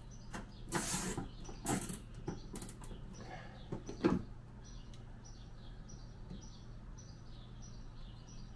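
A plastic zip tie being pulled tight around wiring conduit, with short rasping zips about a second in and again near two and three seconds, then a sharp click about four seconds in as tools are handled. Faint high chirps repeat evenly, about twice a second, through the second half.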